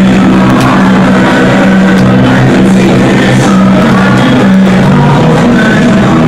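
Loud rock music, playing continuously.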